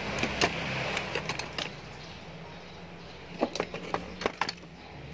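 Sharp clicks and taps of small items being handled and set down on a painted metal workbench, in short clusters, the busiest run coming a bit past the middle, over a steady low hum.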